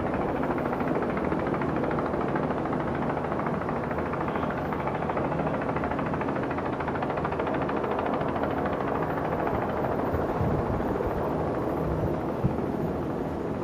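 Steady engine drone with a low hum under a noisy outdoor wash, unchanging throughout.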